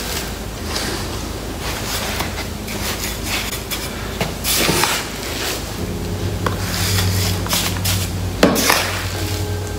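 Hand trowel scraping and scooping through damp cement mix in a plastic tub and packing it onto a leaf mould: a run of irregular scrapes and soft slaps.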